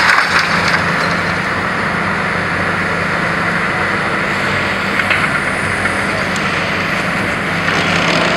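Long-reach demolition excavator's diesel engine running steadily, under a dense crunching noise and scattered clatter of concrete debris as its hydraulic crusher jaws break into the building.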